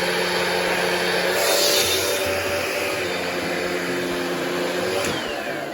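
Hoover Powerdash Pet carpet cleaner running, its suction motor humming steadily with a hiss that grows louder for a moment about one and a half seconds in. About five seconds in there is a click, and the motor winds down with a falling whine as it is switched off.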